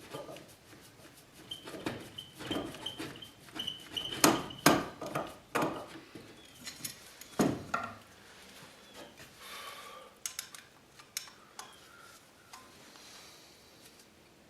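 Metallic clicks, clinks and knocks of hand work on an electrical box as a cable is clamped down in it with a screwdriver, the loudest knocks about four to five seconds in and again about seven seconds in, then fewer and quieter clicks.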